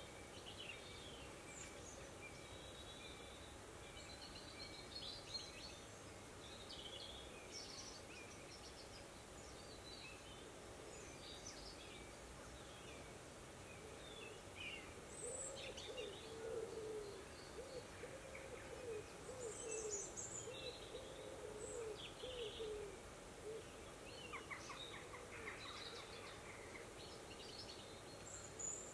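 Faint wild birdsong: scattered short, high chirps and calls from small birds. In the middle, another bird gives a series of low, evenly repeated cooing or hooting notes for several seconds.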